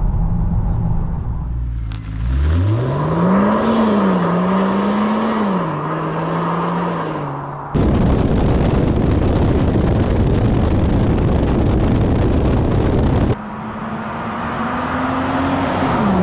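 2024 Range Rover Sport plug-in hybrid's 3.0-litre inline-six petrol engine, fitted with a Quicksilver valved exhaust with the valves shut, cutting in about two seconds in; its note rises and wavers as it pulls, and it stays quiet in the cabin. Then a steady rush of wind and road noise on a camera on the car's side, and near the end the SUV's engine note drops in pitch as it drives past.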